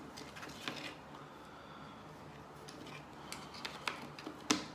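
Faint clicks and light taps as the opened iPod Classic's steel back case and internal parts are handled, with a sharper click near the end.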